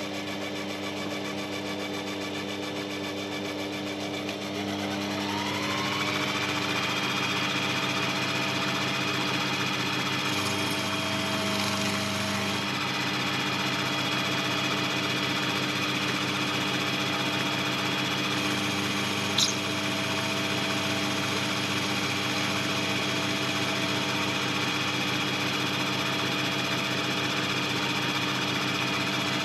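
Sherline benchtop lathe's motor running with a steady hum of several tones. About five seconds in, its pitch rises as the speed comes up, then it holds steady. A single sharp click comes about 19 seconds in.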